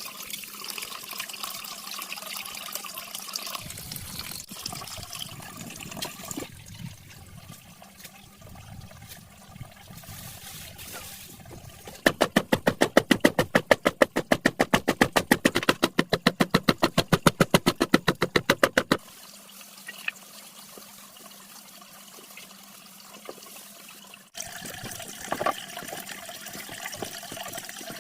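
Water running and splashing, with a loud run of fast, even strokes, about seven a second, lasting some seven seconds in the middle.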